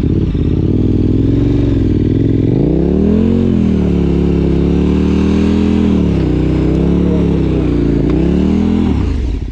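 Large motorcycle's engine running and being revved up and down while the bike is stuck on a slope. The revs climb sharply about three seconds in, dip twice, and drop back near the end.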